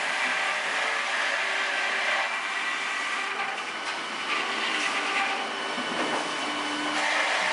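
Cooper sawmill saw running and cutting through a small log fed on a sharp-chain conveyor, a steady loud whirring rush of blade and wood. It eases a little partway through as the saw runs between logs, then grows louder near the end as the next log comes in.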